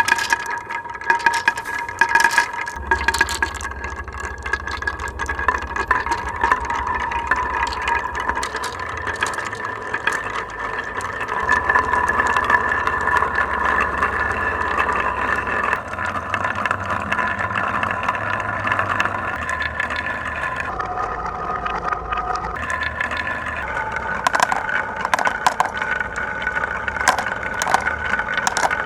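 Marbles rolling and clattering down wooden marble run tracks, with many sharp clicks as they strike the track and each other over a continuous rolling rumble. A low steady hum runs under most of it and stops near the end.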